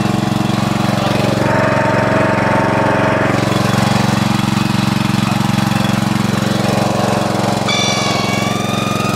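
Riding lawn mower's small engine running steadily at throttle as the mower is driven through mud. A high steady whine joins near the end.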